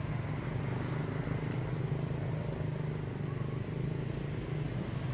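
A steady low engine hum, like a motor vehicle running.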